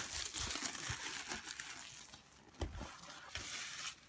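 Clear plastic shrink wrap crinkling as it is peeled off and handled, loudest at first and then fading, with a couple of soft knocks.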